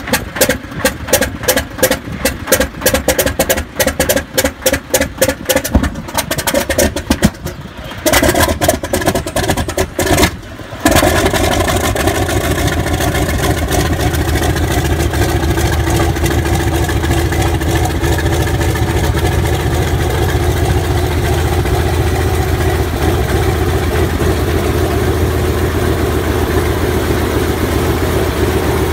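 Antonov An-2's nine-cylinder radial engine cold-starting. It fires unevenly in a rapid, irregular stutter for the first several seconds, then catches about eleven seconds in and settles into a steady run.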